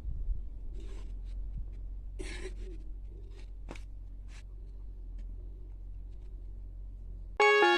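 Low steady hum with a few faint rustles and clicks, then guitar music starts suddenly near the end.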